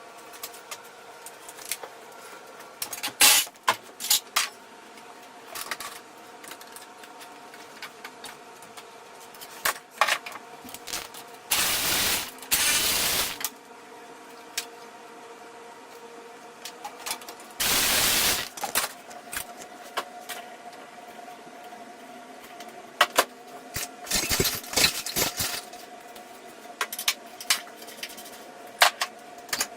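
Hand tools clinking and knocking on metal while a car's axles are taken off, over a steady hum. Two loud bursts of a pneumatic impact wrench come about 12 and 18 seconds in: the first about two seconds long, the second shorter.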